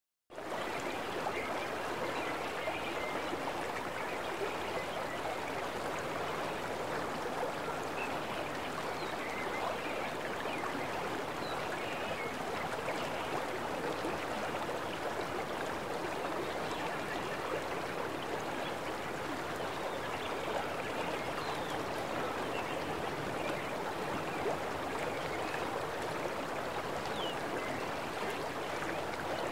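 River water flowing over a shallow, rocky riffle: a steady, even rush of moving water.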